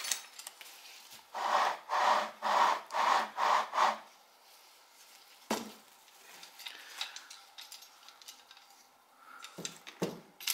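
A hand rubbing back and forth over a foam packing sheet in five quick scraping strokes, about two a second. A few light knocks of parts being handled follow, the sharpest a couple of seconds after the strokes.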